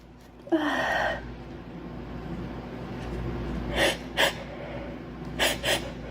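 A girl's breathing during a sneezing fit: a loud breathy burst, opening with a falling voice, about half a second in, then a rising breath and quick sharp sniffs, two in the middle and two near the end.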